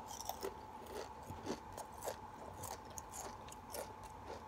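A person chewing a mouthful of Pringles potato crisps: a run of small, irregular crunches, several a second.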